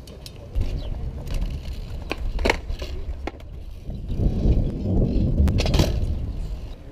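Bicycle tyres rolling over a concrete skate park surface: a low rumble and rattle that starts about half a second in and stops near the end, with a few sharp knocks.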